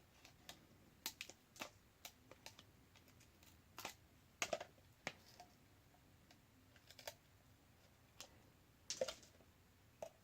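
Faint, irregular clicks and ticks of a tool picking leftover shards of broken screen glass out of a Samsung Galaxy S5's frame, a few louder taps about halfway through and again near the end.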